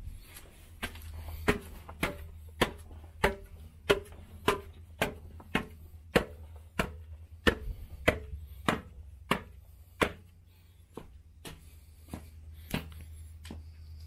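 Footsteps on a concrete walkway, a sharp step about every half second or so at a steady walking pace, with a brief lull near the two-thirds mark, over a low steady rumble.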